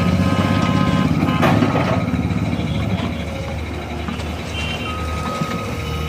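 Komatsu PC130 excavator's diesel engine running steadily under hydraulic load as it works, heavier in the first couple of seconds and then easing, with a brief knock about a second and a half in. A thin, steady high tone sounds over it at the start and again near the end.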